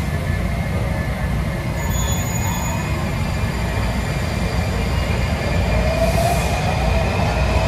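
Washington Metro train moving along an underground platform: a steady low rumble of wheels on rail, with a thin rising whine from about six seconds in as it picks up speed, and a brief hiss at about the same point.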